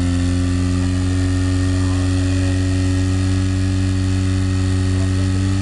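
Portable fire pump's engine running steadily at a constant pitch under load, pumping water through the attack hoses to the nozzles.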